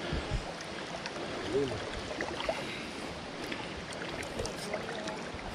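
Wading through a shallow river: water swishing and splashing around legs in waders, over the steady rush of the stream.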